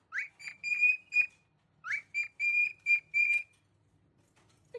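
A pet parrot whistling two quick runs of short, high, piercing notes, each run opening with an upward swoop.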